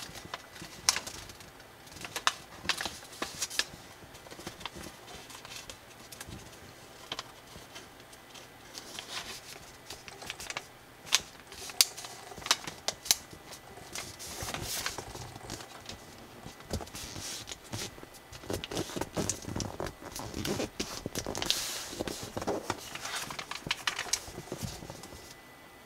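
Sheet of colored origami paper being folded and creased by hand: irregular crisp crackles and rustles, with a denser run of rustling near the end.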